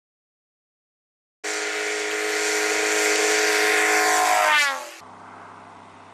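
Light bush plane's engine and propeller passing low and close, growing louder and then dropping sharply in pitch as it goes by, about three seconds long. It then cuts to a much fainter, steady engine drone from a plane further off.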